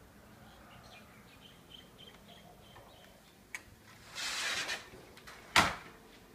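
A sliding glass door rolling along its track with a brief rushing sound, then shutting with a sharp knock about five and a half seconds in. Faint bird chirps during the first few seconds.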